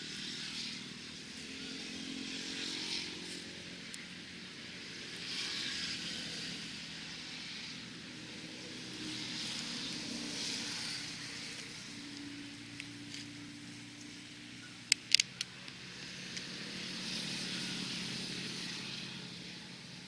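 Distant road traffic, vehicle engines and motorcycles, swelling and fading several times as they pass, with a cluster of sharp clicks about three quarters of the way through.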